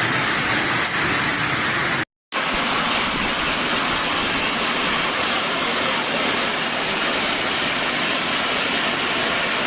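Heavy storm rain pouring down as a loud, steady, dense hiss. It breaks off for a moment about two seconds in, then carries on the same.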